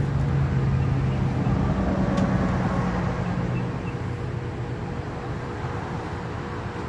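A push broom sweeping across a trampoline mat, heard as a steady scratchy brushing. Under it runs a low motor hum that is strongest at first and fades about four seconds in.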